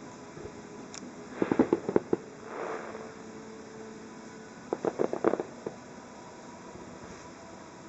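Aerial fireworks going off in two quick volleys of sharp bangs and pops about three seconds apart, with a short rushing hiss between them.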